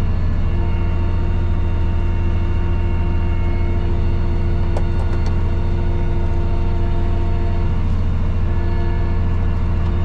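Tractor engine running steadily, a constant drone with a few faint clicks about five seconds in.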